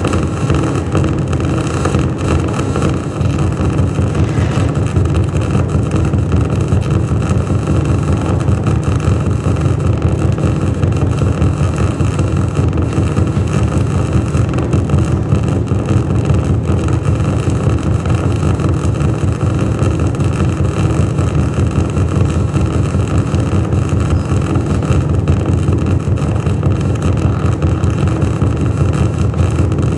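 Loud, steady drone of live electronic noise music: a dense low rumble with several held tones layered above it.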